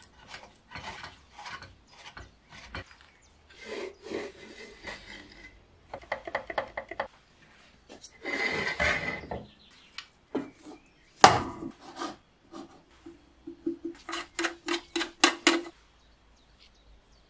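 Hand work on antique kerosene stove parts on a wooden bench: short scraping and rubbing strokes as a flat cotton wick is worked through a metal wick holder, a sharp knock as a part is set down about eleven seconds in, and a run of about ten quick rasping strokes near the end.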